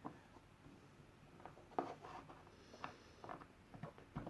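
Faint handling sounds: a few scattered small clicks and rubs of plastic as Nerf darts are loaded into a blaster shell.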